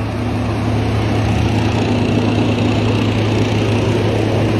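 Freightliner Cascadia semi-truck's diesel engine idling steadily, a constant low drone.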